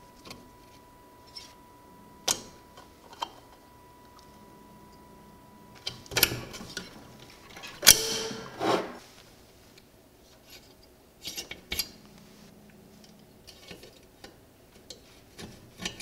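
Hand tools and loose metal parts clinking and scraping on a Briggs & Stratton 5HP flathead engine block as it is taken apart: scattered sharp clicks, with a louder metallic clatter in the middle as the valve breather cover comes off.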